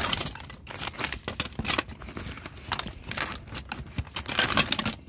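Metal hand tools (sockets, wrenches, ratchets) clinking and rattling against each other as a hand rummages through a soft-sided tool bag, a quick irregular run of clinks.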